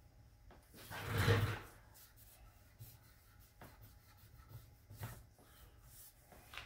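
Gloved hand rubbing beeswax and mineral oil board butter into a wooden cutting board, with one louder scuff about a second in and a few light knocks of the board on the bench after it.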